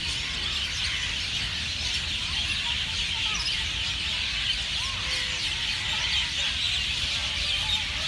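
Dense chorus of many birds chirping and twittering in the treetops, a continuous mass of overlapping short calls, over a steady low rumble.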